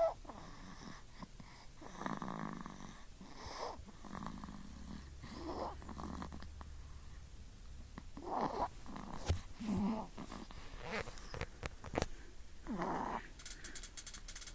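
A 1.5-month-old baby snoring in sleep, with noisy breaths coming every two to three seconds.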